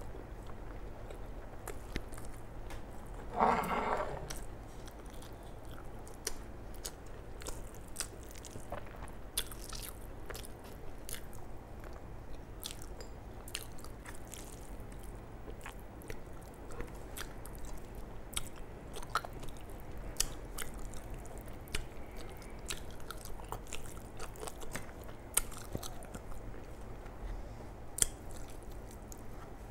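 Close-miked chewing of rice and curry eaten by hand, with many short wet mouth clicks and smacks. A brief hum from the eater about three and a half seconds in.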